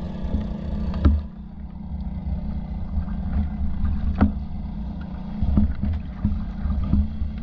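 Water sloshing against a camera held at the water's surface, over a steady low hum, with a few sharp knocks.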